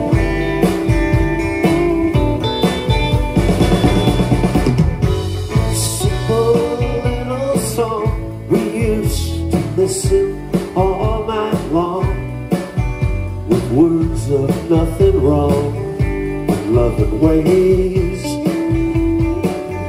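Live rock band playing: electric guitar lines over upright bass and drum kit.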